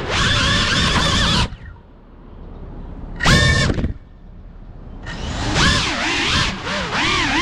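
GEPRC Cinelog 35 ducted FPV cinewhoop's motors and propellers whining, the pitch rising and falling with the throttle. The whine cuts off about a second and a half in while the drone is down on the ground, comes back as a short burst near the middle, and spins back up about five seconds in.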